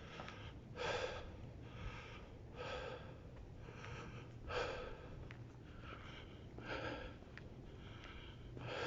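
A person breathing heavily close to the microphone, a steady in-and-out rhythm with a louder breath about every two seconds.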